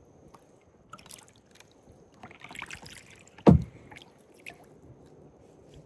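Kayak paddling: water splashing and dripping off the paddle blade with each stroke, and a single sharp knock about three and a half seconds in.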